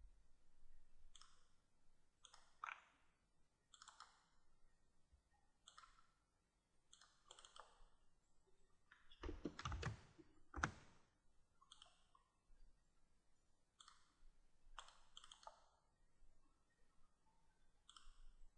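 Faint computer mouse clicks, often in quick pairs, coming every second or so as sketch line points are picked one after another. Two louder thumps come about ten seconds in.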